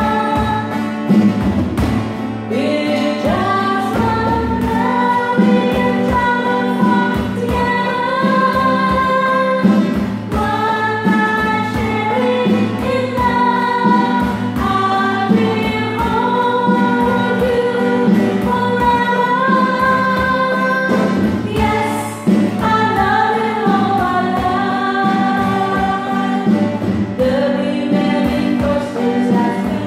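Live worship song: a girl sings with strummed acoustic guitar while a second singer plays an electronic drum kit, keeping a steady beat.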